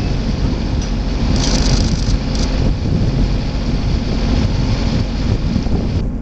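Steady low rumbling of wind buffeting the microphone, with no cannon shot in it.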